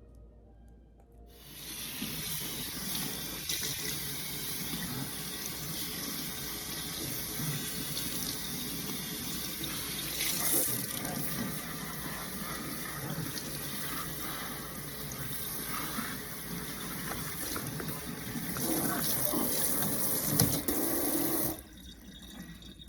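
Tap water running steadily into a sink, starting suddenly about a second in and cutting off near the end.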